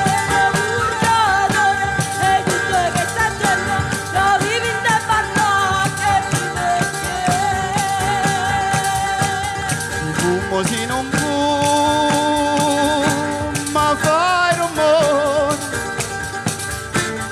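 Southern Italian folk band playing live: a tammorra frame drum beats a steady rhythm under mandolin and a sung melody.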